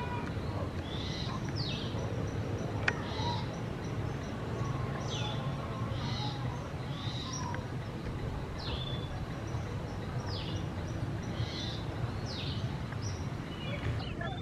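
Saddleback tamarins giving short, high chirps that slide downward in pitch, about one a second, over a steady low background rumble. A single sharp click comes about three seconds in.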